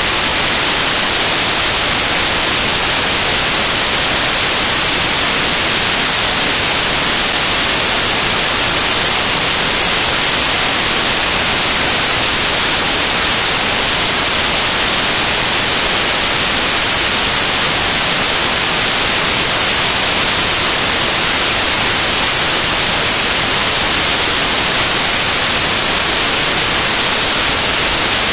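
Loud, steady static hiss like white noise, brightest in the highs, with no music or voices in it: the sound of a dead or lost audio signal.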